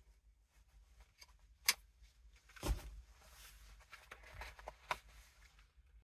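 Clothing and gear being handled: faint rustling with scattered small ticks, a sharp click nearly two seconds in and a dull knock a second later.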